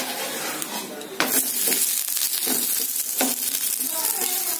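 Frozen Kerala paratha frying in ghee on a hot tawa. The sizzle jumps up suddenly about a second in, as the paratha is flipped onto its ghee-brushed side, and a wooden spatula scrapes and taps on the pan a few times after that.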